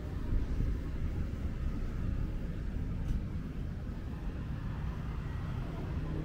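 Steady low rumble of outdoor city-street background noise, with a faint constant hum under it.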